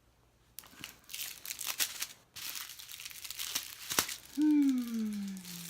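Small plastic bags of diamond painting drills crinkling as they are handled and sorted, with a sharp click about four seconds in. Near the end a person makes a drawn-out, falling 'hmm'.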